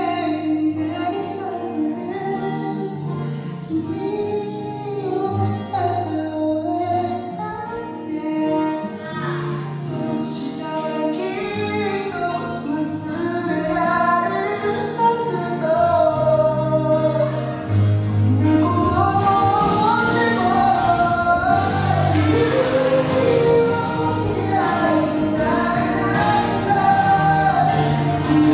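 Pop song with a sung vocal over accompaniment; the bass fills out and the music gets louder about halfway through.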